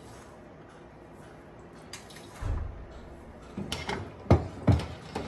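A spoon stirring broth in a large stainless steel stockpot, knocking against the pot: a soft low thump a little past the middle, then several sharp clinks near the end.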